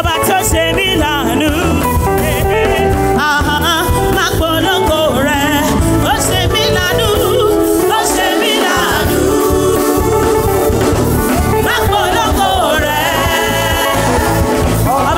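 Gospel praise music: voices singing with vibrato over a full band with a strong bass line.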